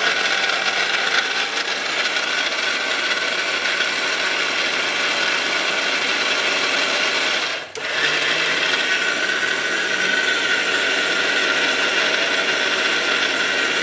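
Ricco mixer grinder's motor running at full speed, its blades grinding dried red chillies with a little water into paste, with a steady high whine over the churning of the jar. It stops for a moment about eight seconds in and starts again.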